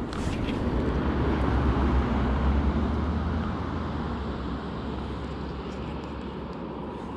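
Low engine rumble of something passing at a distance, swelling over the first two or three seconds and then slowly fading.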